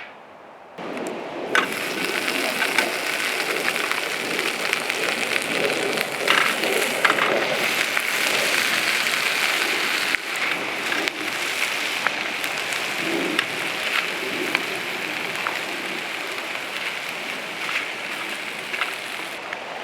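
Food sizzling and crackling in hot oil in a pan, starting suddenly about a second in as the ingredients go in, with scattered sharp pops, then slowly easing.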